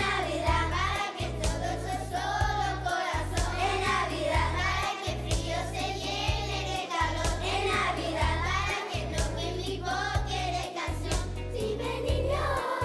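School choir singing a holiday song over an instrumental accompaniment with a steady beat.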